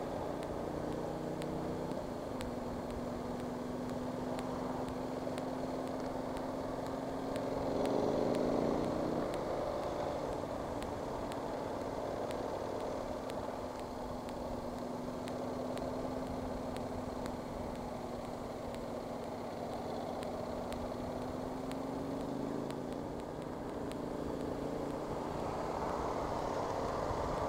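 A motorcycle engine running on the move, with a steady hum of wind and road noise. About eight seconds in it gets louder and rises in pitch as the bike accelerates, and it picks up again near the end.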